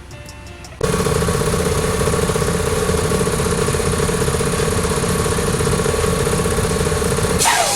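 Water-cooled Tanabe H-73 piston air compressor starting abruptly and running loudly and steadily, with a strong steady hum. Near the end there is a sudden burst of noise with a falling tone.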